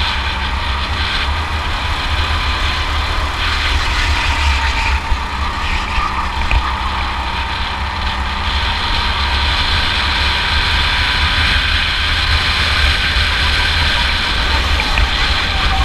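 Go-kart engine running at speed, heard onboard from the driver's seat: a fairly steady engine note over a heavy low rumble.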